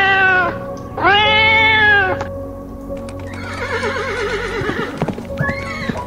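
A cat meowing twice, two long calls about a second apart, each rising then falling in pitch, over background music. A shorter quavering call follows past the middle.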